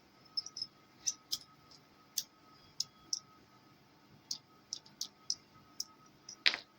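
Irregular small clicks and taps of metal parts being handled: a Leatherman multitool and its clip-on pocket clip. About fifteen sharp clicks come at uneven intervals, with a longer, louder scrape near the end.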